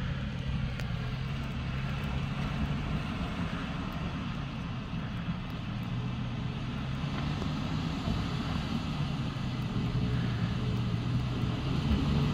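Toyota Tacoma pickup's engine running steadily as the truck crawls up a rutted dirt hill trail. It gets louder near the end as the truck draws closer.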